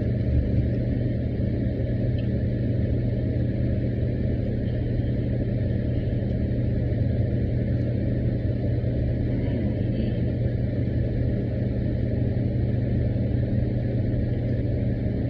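Steady low mechanical hum with a deep, even drone that does not change.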